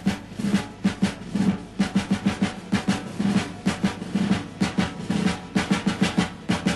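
Music: a drum kit playing a quick, steady beat of snare and drum hits with no other instruments.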